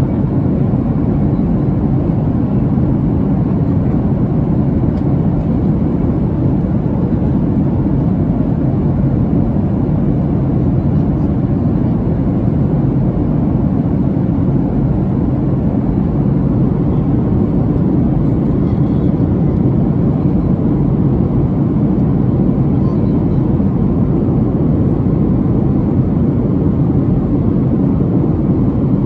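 Steady cabin noise inside a Boeing 737-700 in descent: a constant low rush of airflow and CFM56 engine noise.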